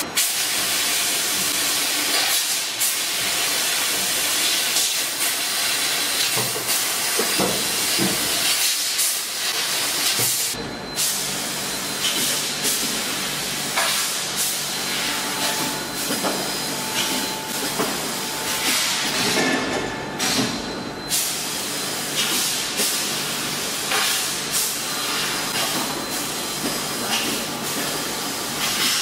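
CNC laser pipe cutting machine running: a steady, loud hiss with short clicks. About ten seconds in, a low hum joins it, along with repeated clacks.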